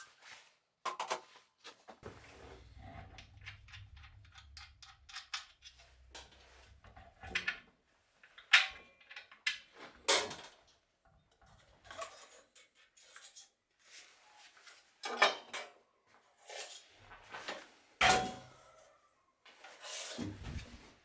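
Tools and metal parts being handled during a workbench build: irregular clinks, clicks and knocks. A low hum with rapid ticking runs for a few seconds near the start.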